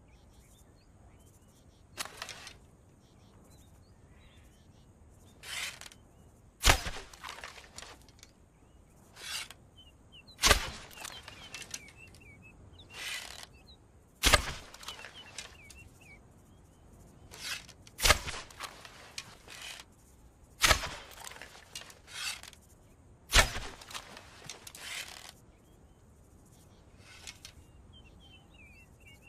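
Bow and arrow shots, repeated about six times a few seconds apart: each is a loud, sharp crack with softer swishing sounds close around it. Faint bird chirps are heard in the background.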